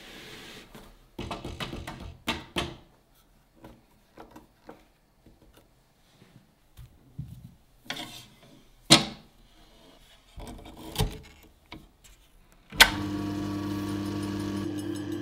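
Electric meat slicer being handled and set up: scattered metal clicks and a few loud clacks, then, near the end, a sharp click as it is switched on and its motor starts running with a steady hum.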